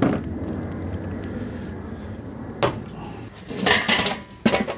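A handful of knocks and clunks: a sharp one at the start, another about two and a half seconds in, then a longer scraping clunk and a quick double knock near the end, over a low steady rumble.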